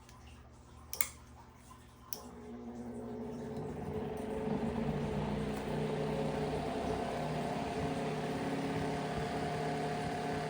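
Two clicks, then a vintage Corando 8-inch electric fan's motor coming up to speed over about two seconds and running on with a steady hum.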